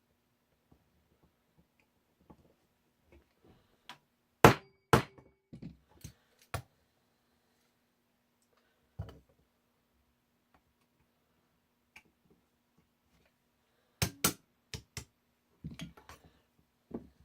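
Sharp metal knocks as the hammer and sear pins are driven out of a Smith & Wesson 469 pistol frame. Two loud strikes come about four and a half seconds in, a few lighter taps follow, and a quick pair of strikes with several lighter taps comes near the end.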